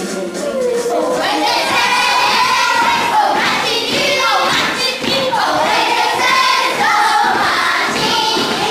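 A group of children singing together, many voices at once, with thumps throughout.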